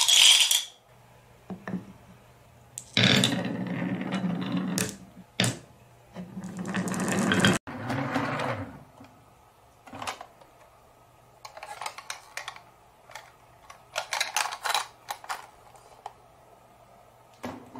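Marbles released at a gate clatter, then roll and rumble down a wavy wooden marble-run track in long runs, one building up and cutting off suddenly about halfway through. Later come scattered clicks and clusters of small rattles.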